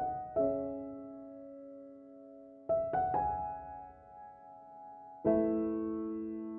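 Slow, soft piano music: sustained chords struck a few seconds apart, each left to ring and fade.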